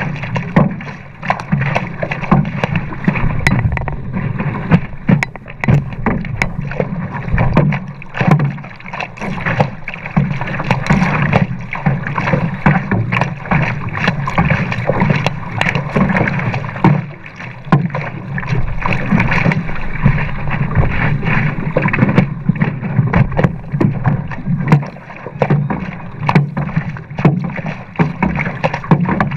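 Water rushing and splashing along the nose of a race stand-up paddleboard under hard paddling, heard from a camera mounted on the board close to the water. Irregular splashes of the paddle blade catching and leaving the water come through the steady rush.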